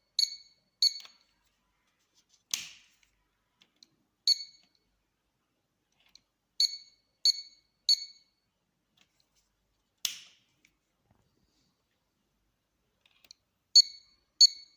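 Electronic scale's buzzer giving short high beeps, in runs of three about half a second apart and once singly, with two sharp clicks in between, about two and a half and ten seconds in.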